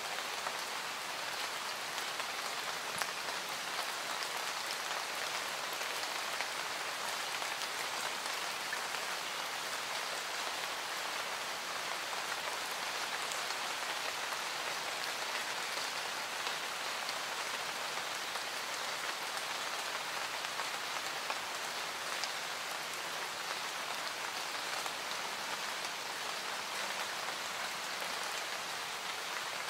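Steady rain falling on a surface, an added rain-sounds ambience track.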